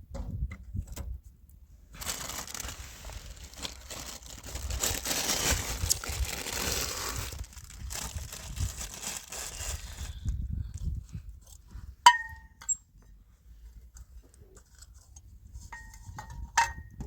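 Rustling, crinkling noise for several seconds, then a sharp ringing clink about twelve seconds in and a few lighter clinks near the end.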